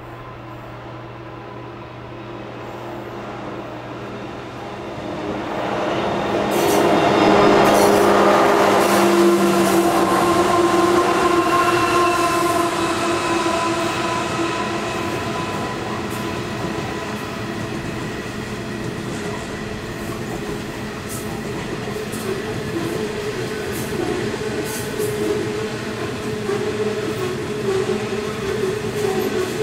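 Loaded coal train passing: Pacific National diesel locomotives drone steadily as they approach, growing louder and peaking about seven seconds in as they go by. A long string of loaded coal hopper wagons then rolls past, wheels clacking over the rails, with thin steady ringing tones from the wheels.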